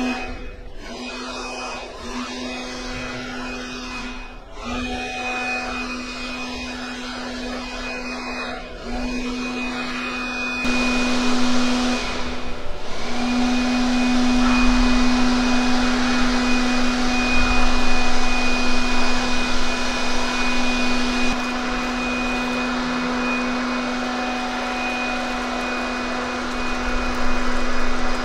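A car-drying air blower blowing hard: a steady motor hum with rushing air, which gets louder about ten seconds in and stays loud.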